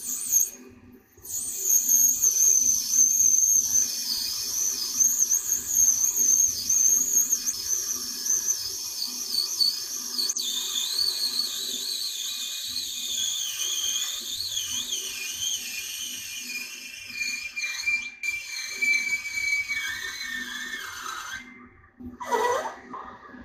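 CNC lathe turning a long, slender workpiece, giving off a high, wavering whistle that slides slowly lower in pitch. Near the end the whistle breaks off briefly and swoops quickly downward.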